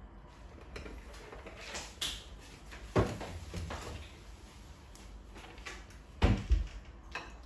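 Kitchen handling knocks and thumps: a few separate knocks, the loudest about three seconds in and a quick double knock near the end.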